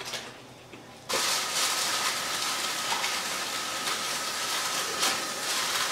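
A spatula stirs browned ground meat in a skillet on a gas burner. About a second in, a steady sizzling hiss starts suddenly: chicken frying in a lidded frying pan.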